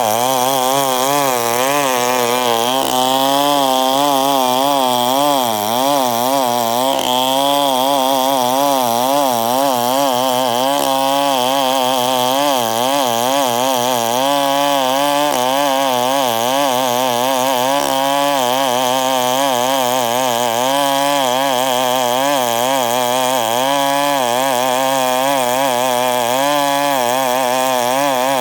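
Chainsaw running at high speed while cutting wood into boards, its engine pitch wavering up and down continuously as the load on the chain changes.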